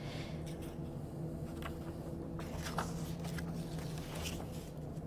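Faint rustles and light taps of a paper handout being handled and swapped under a document camera, over a steady low hum.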